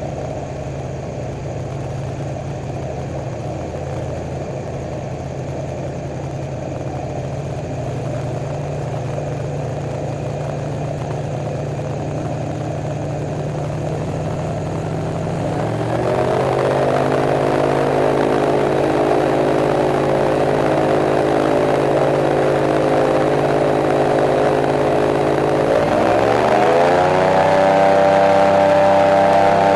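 Airboat's engine and air propeller running at a steady low speed, then throttling up about halfway through: the pitch rises to a higher steady tone, and rises and grows louder again near the end.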